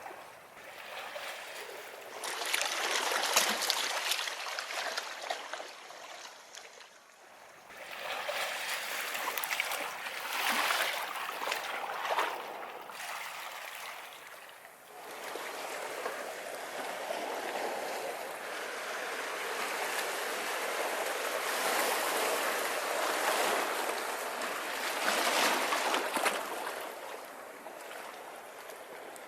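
Sea waves breaking on a beach and washing back, the surf rising in surges a few seconds long and ebbing between them, with a longer, fuller swell through the second half.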